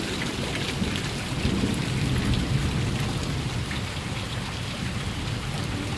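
Steady hiss of water on a flooded street: rain still falling and floodwater washing along the curb, with no single event standing out.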